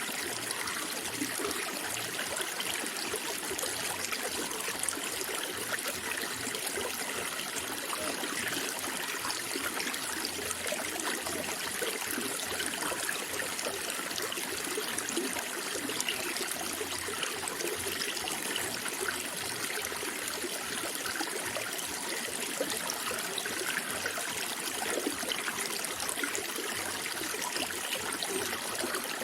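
Water flowing and trickling steadily, with many small splashes and gurgles and no change in level.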